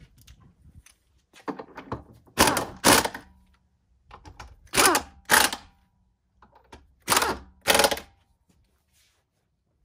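Pneumatic impact wrench running in short bursts, mostly in pairs, as it spins on and tightens the lug nuts holding the spare tire on the Jeep Wrangler's tailgate carrier.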